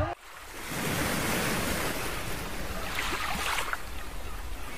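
Waterfall pouring into a rocky pool: a steady rush of falling water and spray. It dips just after the start and builds back over the first second.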